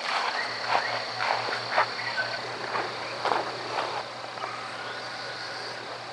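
Frogs calling in a quick run of short croaks over a steady high-pitched insect drone; the croaks die away about four seconds in, leaving the drone and a faint low pulsing hum.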